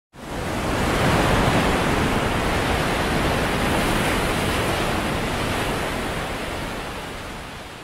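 Steady rushing noise of a stormy sea, waves and wind, coming in suddenly and fading out over the last couple of seconds.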